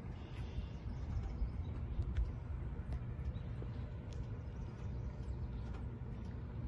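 Air-cooled flat-six engine of a classic Porsche 911 running steadily at low revs as the car rolls slowly forward, with faint scattered ticks.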